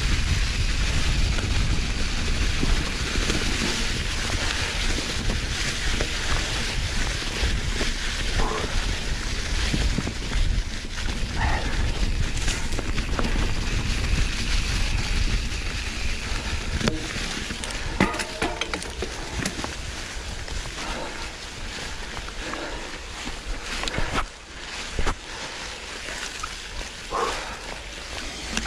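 Full-suspension Canyon Lux Trail mountain bike riding over a leaf-covered forest trail: tyres rolling through dry leaves with rattles and knocks from the bike, and wind buffeting the microphone. The rider's heavy breathing comes through at times.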